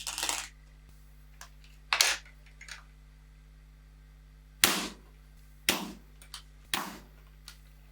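A series of sharp metallic clacks and clicks at irregular intervals, some loud and some faint, each with a short ringing tail, from air-rifle and target handling.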